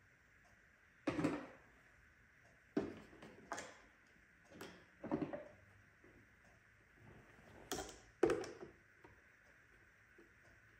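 Irregular knocks and clatters of hard plastic as a robot vacuum is handled and taken apart, about seven in all; the loudest come about a second in and near the end.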